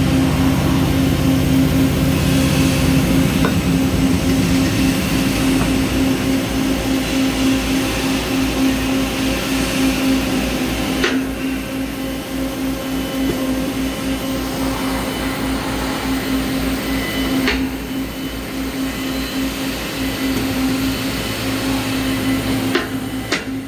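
Peddinghaus PCD-1100/3C CNC beam drill line running: a steady machine hum under a constant mechanical wash, with a few sharp clicks several seconds apart.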